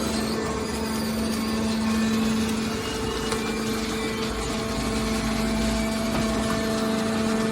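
Hydraulic scrap-metal baler running steadily: the electric-motor-driven hydraulic pump gives a constant hum with a steady tone over mechanical noise. A deeper rumble joins for about a second and a half past the middle.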